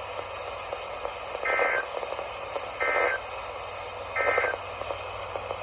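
Three short bursts of EAS SAME digital data tones on NOAA Weather Radio, each a fraction of a second long and about a second apart, over steady radio static: the end-of-message code that closes the Required Weekly Test.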